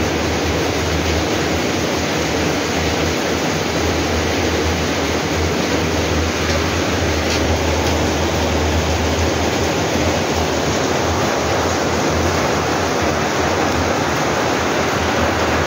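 Rain pouring down steadily: an even, unbroken hiss.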